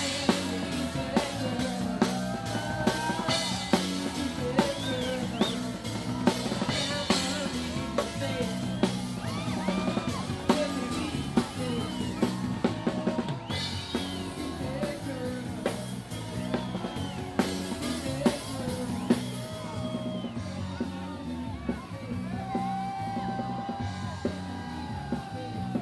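Loud music with a steady drum-kit beat and a singing voice.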